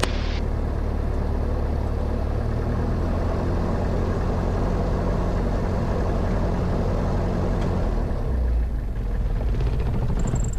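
Grumman AA-5 single-engine light aircraft's piston engine and propeller running at low power while taxiing, a steady droning hum. There is a short hiss at the very start, and the low drone shifts about eight seconds in.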